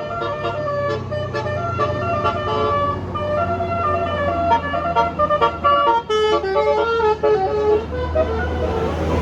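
Bus telolet basuri musical horn playing a fast melody of short stepping notes over the bus's steady engine running; the melody stops near the end, leaving the engine.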